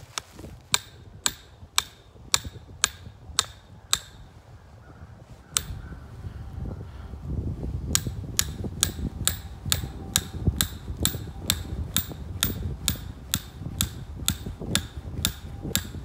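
A 2.5 lb hammer striking a metal stake driver, driving a wolf fang earth anchor into the ground with sharp, even blows. There are about two blows a second at first, a pause of a few seconds, then a slightly quicker run of blows to the end, over a low rumble. The anchor is going in easily in soft ground.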